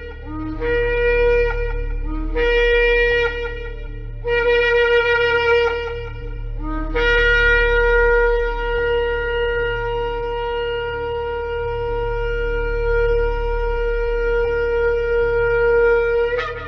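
Shofar blown in a series of blasts: three short blasts, each starting on a brief lower note and jumping up to the main note, then one long held blast of about nine seconds that ends with a sharp upward leap in pitch. A steady low drone sounds underneath.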